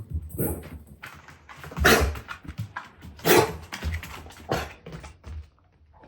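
Dogs barking while they play, with four loud barks about a second and a half apart and quieter dog sounds between them.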